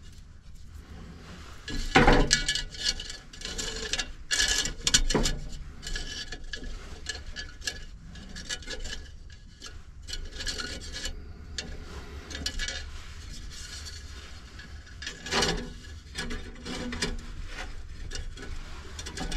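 Thin wire being bent and twisted by hand into candle supports inside a terracotta flower pot, scraping and rubbing against the clay, with a few sharper knocks, the loudest about two seconds in.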